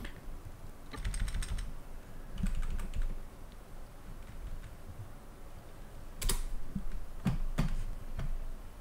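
Computer keyboard being typed in a few short bursts of keystrokes, with the loudest key strikes about six to seven and a half seconds in.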